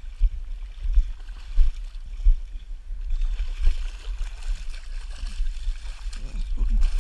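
A hooked brown trout splashing at the water's surface, with heavy low buffeting on the microphone; from about three seconds in, rustling and scuffing come in as the angler moves onto the bank.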